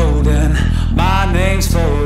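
Background music: a song with a sung melody over steady sustained bass notes.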